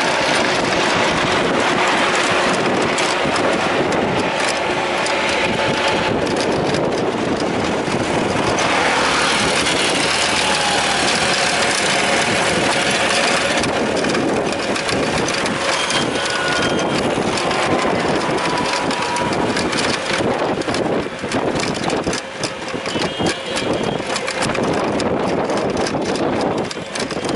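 Steady engine and road noise from riding on an engine-driven rickshaw in traffic. The loudness wavers more in the last few seconds.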